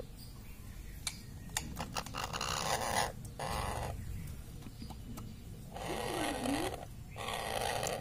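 Indian ringneck parakeet making raspy, hissing sounds in two bursts of about a second each, a few seconds apart.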